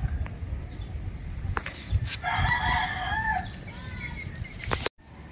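A rooster crows once, a single call of a little over a second that bends down at its end. Under it are a steady low rumble and a few sharp knocks, the loudest just before the crow.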